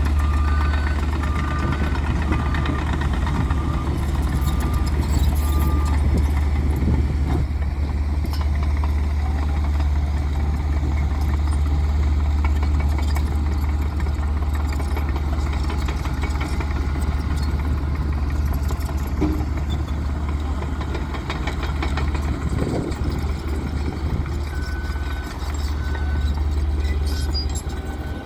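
Heavy road-construction machinery running with a steady low engine rumble. A reversing alarm beeps about once a second for the first five seconds or so, and again briefly near the end.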